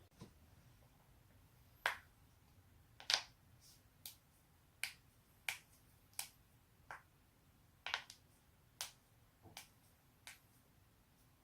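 Human joints being cracked: a series of about a dozen short, sharp pops, roughly one every second or less, beginning about two seconds in.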